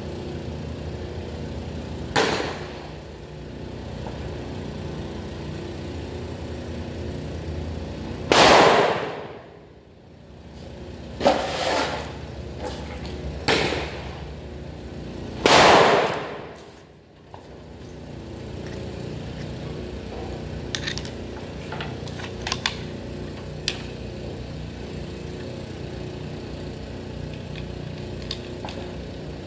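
Gunshots on a shooting range: five sharp reports in about fourteen seconds, the loudest two about seven seconds apart, each ringing out briefly. Then a few light clicks as an AR-15-type rifle is handled at the bench.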